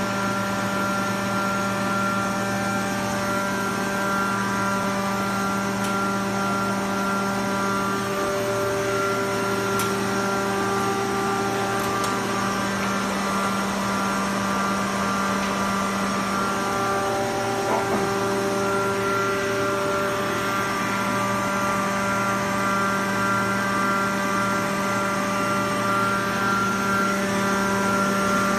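22 kW rotary screw air compressor running steadily: an even machine hum made of several steady tones from its electric motor and air end.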